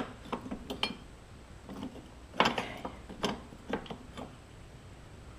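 Irregular sharp clicks and light metal knocks from hands fitting a belt keeper and drive belt around the self-propel transmission pulley of a walk-behind mower. The louder knocks come about two and a half seconds in and twice more over the next second and a half.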